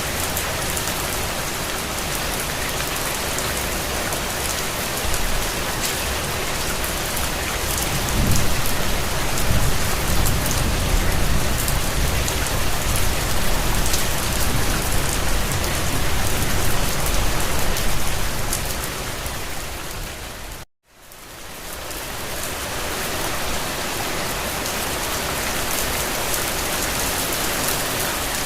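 Steady rain falling on a surface, a dense even hiss. A low rumble swells under it for about ten seconds in the middle. About three-quarters of the way through the sound cuts out for an instant and fades back in.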